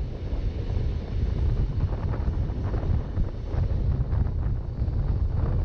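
Steady low rumble of an RhB ABe 8/12 Allegra electric train running along the track, heavily buffeted by wind on the microphone.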